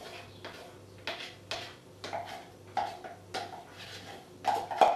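A kitchen utensil scraping and tapping against a small jug as melted chocolate and butter are scraped out into a food processor, in short strokes about two a second, loudest near the end.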